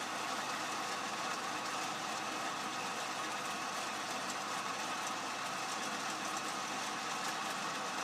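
Atlas 10-inch turret lathe running under power while its tool cuts a spinning half-inch steel bar in a bevel-and-parting operation: a steady, even machining noise with a faint constant whine.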